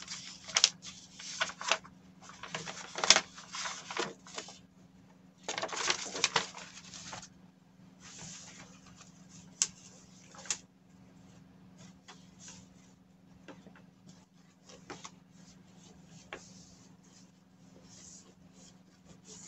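A paper sewing pattern and cloth being picked up and handled: loud crinkling and rustling for the first several seconds, then quieter rustles and light taps. A steady low hum runs underneath.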